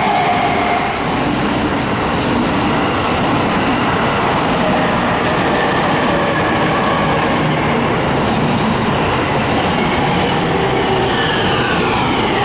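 Electric train running past, a loud steady rumble of wheels on the rails with faint thin whistling tones; near the end a whine slides down in pitch.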